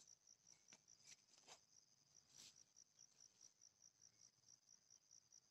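Faint insect chirping in a steady high pulsed trill, about four pulses a second, with a few faint soft clicks.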